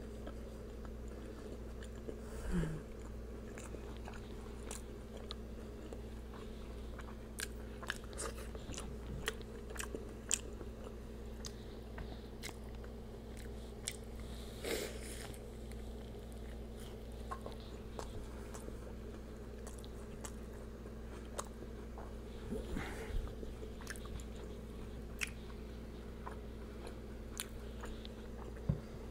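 Close-up eating sounds: a crisp Oaxaca-cheese taco shell being bitten and chewed, with crunching and many small mouth clicks. Louder bites come about two and a half seconds in, near the middle and about four seconds from the end.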